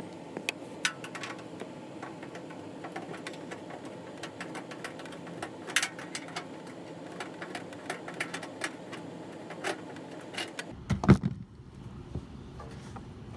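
Scattered metal clicks and taps of a hand driver working screws on a furnace's sheet-metal blower housing, over a steady background hum. A louder knock comes near the end.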